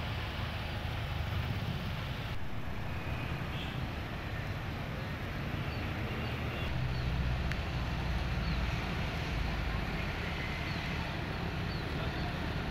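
Large coach's diesel engine running at low speed as the bus maneuvers: a steady low rumble that swells a little around the middle.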